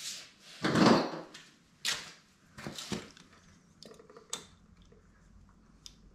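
Windshield mounting clamps being handled and slid down a motorcycle fork tube: a short, loud scrape about a second in, then a few light clicks and knocks of the clamp parts.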